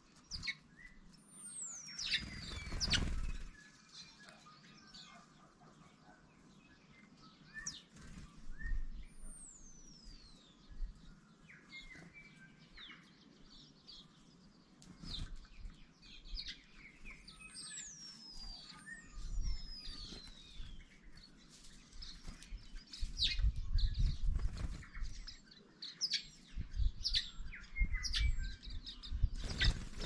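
Small birds feeding at a backyard feeder: house sparrows chirping and waxeyes (silvereyes) calling, with several clear, high whistles that slide down in pitch. Bursts of wing flutter come as birds fly in and out.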